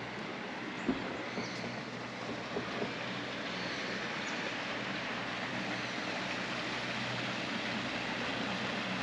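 A small boat's motor running steadily on the river, slowly growing louder as it approaches. A few faint knocks in the first three seconds.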